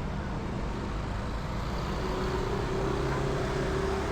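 Street traffic: motor vehicle engines running close by, with one engine note that climbs slightly in the second half.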